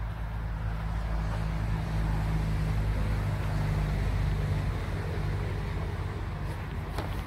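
Road traffic: a vehicle passing on a nearby road, its low engine hum and tyre noise swelling to its loudest around the middle and then fading.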